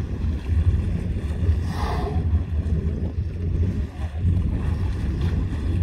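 Steady low rumble of wind buffeting the microphone on a boat at sea, with a brief hiss about two seconds in.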